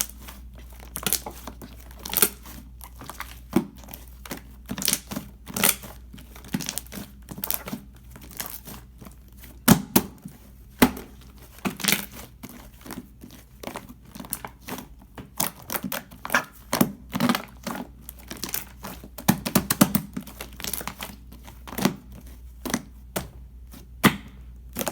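Clear slime mixed with shaving foam being worked by hand, giving irregular crackling clicks and pops, several a second, some with a soft low thud.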